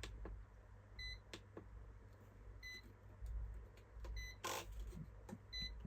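Short high electronic beeps repeating about every second and a half, four times, from the rebuilt Hubsan H501S drone set while it fails to find a GPS signal. Faint clicks and a brief rustle about four and a half seconds in.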